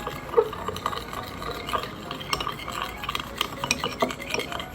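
A spoon stirring baking soda into boric acid water, clinking irregularly against the sides of the container as the powder dissolves.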